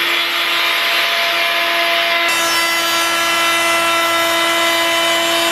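Electric plunge router running at full speed and cutting a shallow rebate in wood: a loud, steady motor whine over the noise of the bit chewing through the timber.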